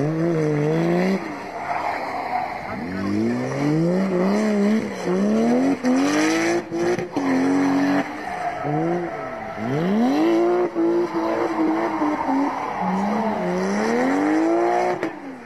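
Toyota JZX81 sedan's engine revving hard and dropping off again and again through a drift, the pitch swinging up and down every second or two, with tyres squealing and skidding.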